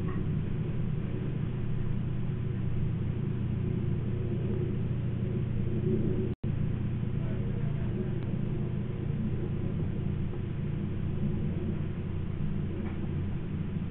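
A steady low rumble with no distinct events, broken by a brief dropout about six and a half seconds in.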